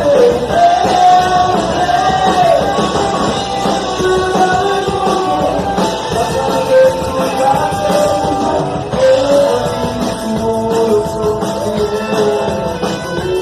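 Punk rock band playing, a singer's voice over guitars.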